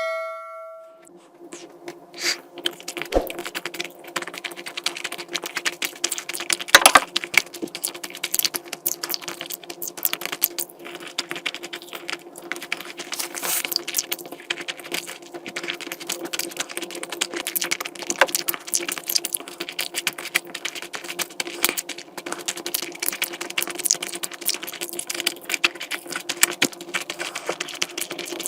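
Close-miked eating sounds: dense, irregular mouth clicks, smacks and chewing over a steady low hum, after a short bell-like chime that fades within the first second.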